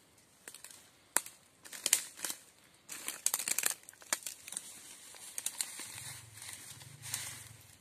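Dry twigs and branches crunching and snapping underfoot as someone steps through a bed of cut brush, with the rustle of branches being pulled by hand; irregular crackles, some louder snaps among them.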